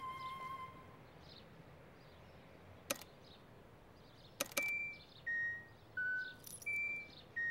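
Pedestrian crossing signal sounding its walk tone: short electronic beeps stepping down in pitch in threes, about one every 0.7 s, starting a little past halfway. This is the signal that it is safe to cross. A held musical note fades out in the first second, and two sharp clicks come before the beeps.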